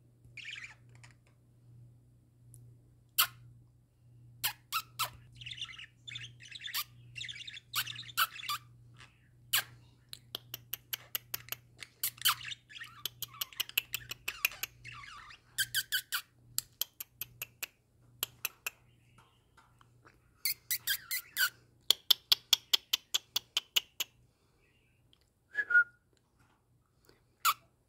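Budgerigars warbling and chattering, a scratchy run of notes broken by sharp clicks and fast runs of clicks, the loudest click runs a little past two-thirds through. A short pitched call comes near the end.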